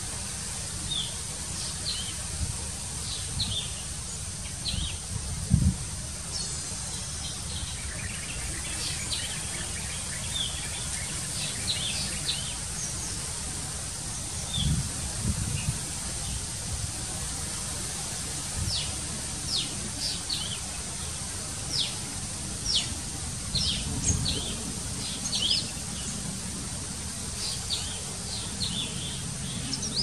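Outdoor ambience of small birds chirping, many short, quick high chirps scattered throughout, over a steady low rumble and a steady high whine. A few dull low thumps, the loudest about five and a half seconds in.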